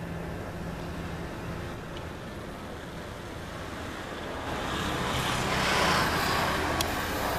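Aqua Spirit car ferry's engines droning low and steady as the ship comes in to berth. In the second half a rushing noise swells up, peaks and eases off again.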